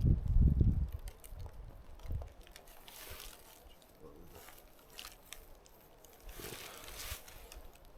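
Low rumbling thumps on the microphone in the first second, then light rustling and crunching with scattered clicks, swelling briefly about three seconds in and again near seven seconds.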